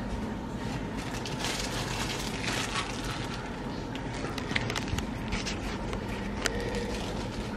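A steady low hum with light clicks and a brief rustling stretch, the sound of handling near a running kitchen appliance.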